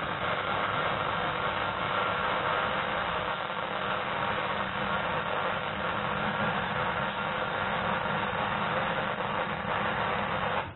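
MIG welding arc running one continuous bead on steel, joining a post and plate to an old truck brake drum: a steady, even noise that cuts off abruptly near the end.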